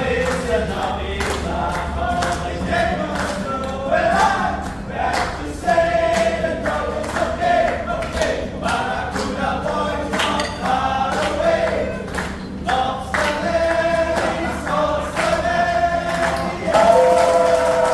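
Voices singing together over a musical accompaniment, choir-like, with long held notes and a steady low bass line.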